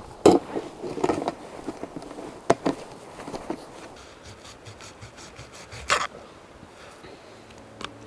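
Camp cooking gear being handled: irregular scraping and rubbing with scattered sharp knocks and clicks, the loudest knock about six seconds in.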